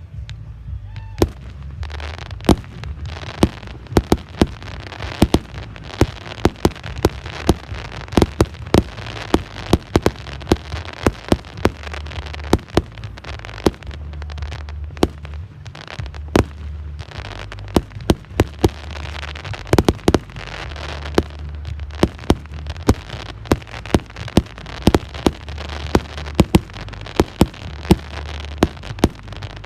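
Fireworks display: a dense, continuous barrage of sharp bangs, often several a second, over a steady crackle.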